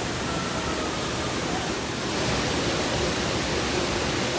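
Steady rush of falling water, growing a little louder about two seconds in.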